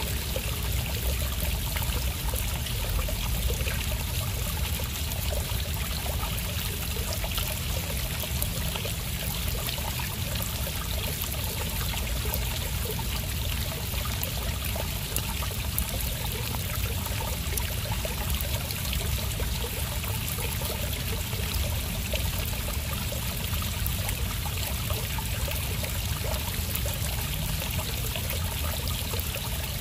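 Shallow stream babbling steadily as it runs and spills over a stony bed in a narrow stone-walled channel.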